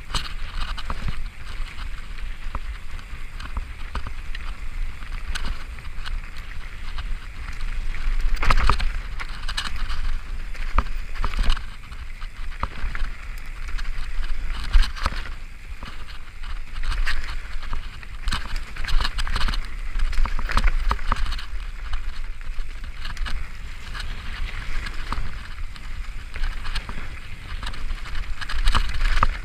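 Mountain bike descending a dirt forest singletrack at speed: tyres rolling over dirt and roots with a continuous hiss, and frequent knocks and rattles from the bike over bumps, over a steady low rumble.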